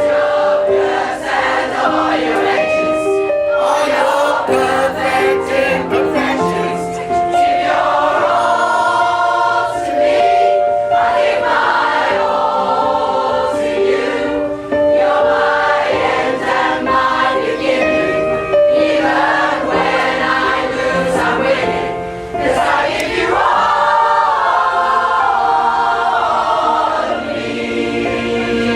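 A pop choir singing a song, many voices in harmony, phrase after phrase.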